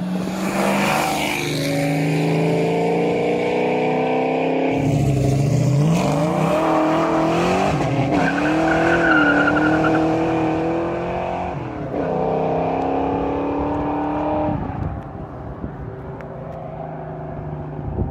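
Fox Body Mustang exhaust through Flowmaster 40 series mufflers, loud as the car accelerates hard past, the engine note climbing in pitch and dropping back at gear changes about five and twelve seconds in, then fading away near the end.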